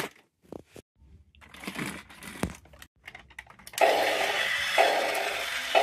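Battery-powered Robot 2001 toy robot: a few light clicks, then about four seconds in its motor and gears start up with a loud sound that pulses about once a second.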